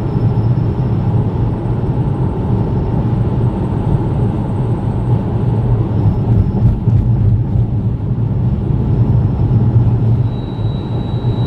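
Vauxhall Mokka driving, a steady low rumbling drone heard in the cabin: the strange noise the owner is chasing, which he thinks may come from the back wheels but is not sure. A thin high whine joins near the end.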